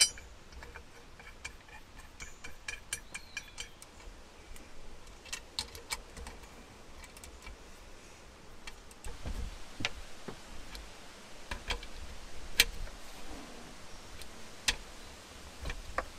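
Bolts, a socket ratchet and the metal exhaust parts of a two-stroke jet ski engine clicking and clinking as the exhaust plate is bolted back on. There is a quick run of light ticks in the first few seconds, then scattered single sharp clicks.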